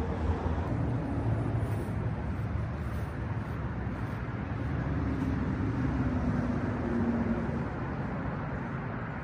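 Road traffic: a steady rumble of passing vehicles, with one vehicle's engine louder about five to seven seconds in, its pitch falling slightly as it goes by.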